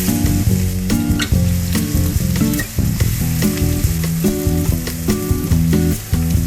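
Food sizzling in hot oil in a pan while being stirred, with background music of plucked guitar and bass notes playing over it.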